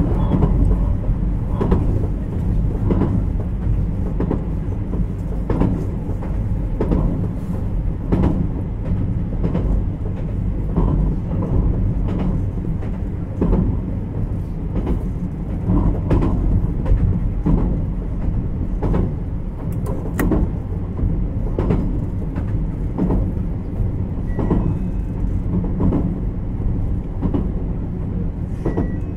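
JR Kyushu 817 series electric train, motor car KuMoHa 817-1009, running along the line, heard from on board: a steady low rumble with the wheels clicking over rail joints about once a second.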